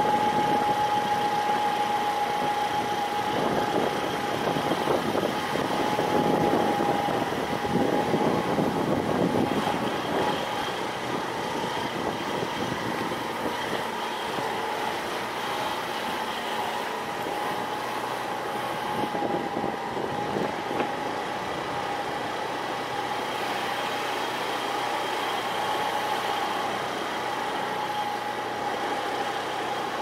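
A motor or engine running steadily with a constant high whine, rougher and louder in the first ten seconds.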